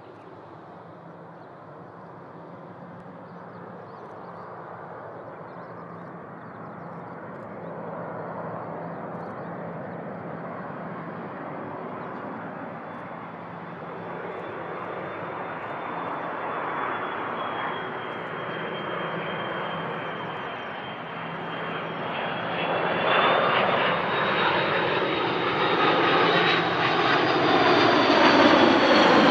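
Airbus A330-200 twin jet engines on final approach with gear down, growing steadily louder as the airliner nears, with a high fan whine over the jet noise. Near the end the sound peaks and its pitch slides down as the aircraft passes close by.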